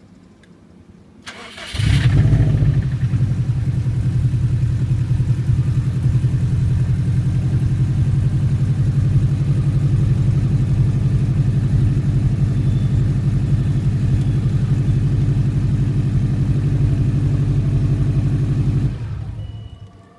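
Subaru engine cold-started: a brief crank catches about a second and a half in, then it runs steadily at idle and shuts off near the end. It has a knock on cold start that the owner says fades after a few seconds, and suspects is piston slap or the belt tensioner.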